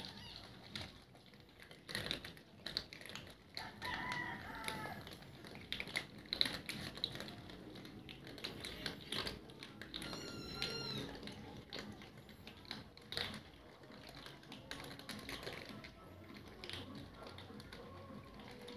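A group of cats crunching dry kibble from a shared tray: a dense, uneven patter of small crunches and clicks. Two short cat meows, one about four seconds in and one about ten seconds in.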